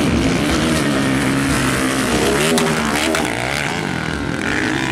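Motocross dirt bike engines revving as they race around the track, their pitch rising and falling, with more than one bike running at once.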